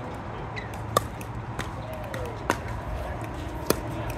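Pickleball paddles hitting a plastic pickleball in a rally: three sharp pops about a second and a half apart, with fainter pops from play on neighbouring courts.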